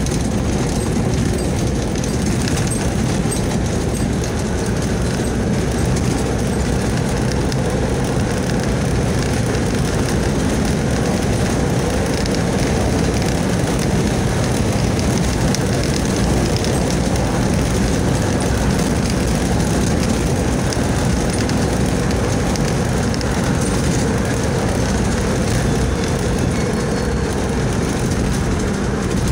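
Steady road and engine noise heard from inside the cabin of a vehicle driving along a paved highway, an even low rumble and hiss with no change.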